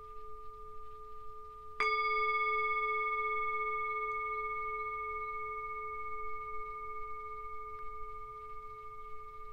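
Small Tibetan singing bowl held on the palm, already ringing, struck once with a mallet about two seconds in. It rings on with a low steady tone and several higher overtones, fading slowly.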